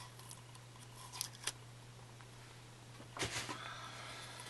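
Scissors snipping open a small plastic retail package: two light snips a little over a second in, then a longer cut with package rustle a little after three seconds. A steady low hum runs underneath.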